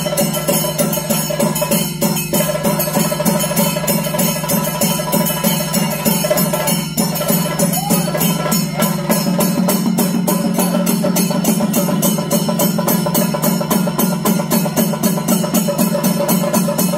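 Percussion music with a fast, even beat of drum and metal strikes over a steady held tone.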